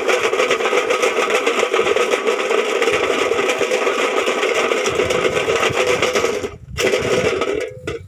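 A metal tin rattled rapidly and continuously to scare sparrows off ripening rice. It stops briefly about six and a half seconds in, starts again, then stops just before the end.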